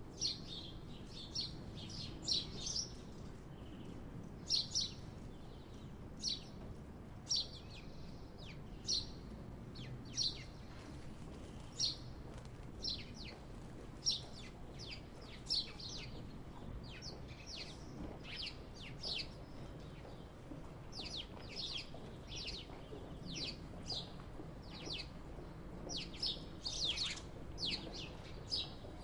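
Small birds chirping: short, high chirps about once or twice a second, some in quick pairs, over a faint low hum.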